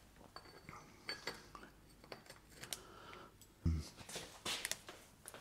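Light metallic clicks and clinks as a T-handle hex key works the crank-arm bolt on an e-bike mid-drive motor. A single dull thump comes about two-thirds of the way in, followed by a quick run of small ticks.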